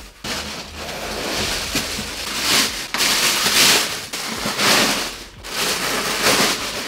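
Crinkly packaging rustling and crackling as it is handled, in several long swells, while a TV is unpacked.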